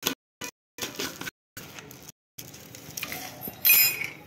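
Plastic handling sounds of a bullet-style blender being assembled: clicks and scrapes in short cut-up snippets, with a louder scraping squeak near the end. The motor is not yet running.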